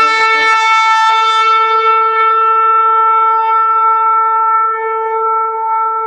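A shofar sounding one long, steady blast, with a few brief stutters in the first second as the note settles.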